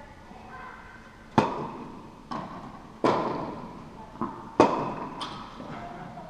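Tennis rally on an indoor court: three loud racket hits about a second and a half apart, each followed by a softer ball bounce, all echoing in the large hall.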